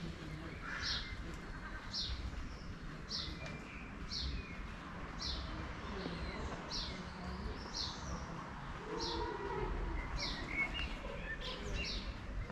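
A bird calling the same short, high chirp over and over, about once a second, over a steady low rumble of street background.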